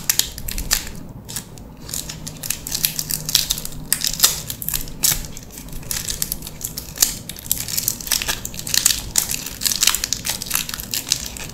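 Clear plastic wrapping around a stack of trading cards crinkling and crackling in quick, irregular bursts as fingers work the wrapped stack out of a cardboard sleeve.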